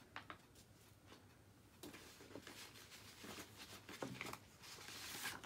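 Faint rustling and a few soft taps of paper coloring pages being handled and set down.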